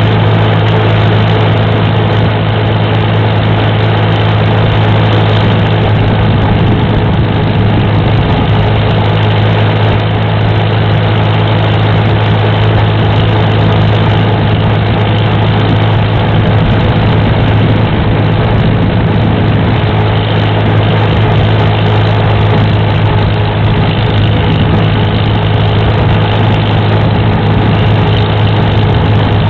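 Farmall tractor engine running steadily while the tractor travels down the road, heard from the seat just behind its upright exhaust stack: an even, unbroken low drone.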